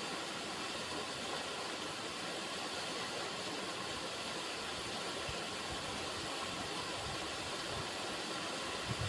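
River water running in a steady, even rush, with a soft low thump near the end.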